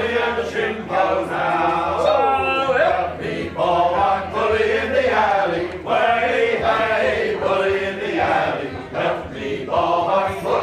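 Voices singing together in a chant-like song, with a steady low hum underneath that fades out near the end.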